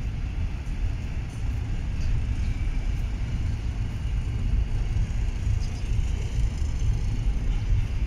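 Steady low rumble of a double-stack intermodal container freight train rolling past, its well cars' wheels running over the rails.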